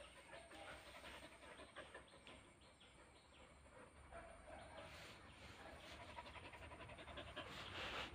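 Faint dog sounds from a Husky and a Border Collie: soft, short noises, with a brief louder scuffle near the end.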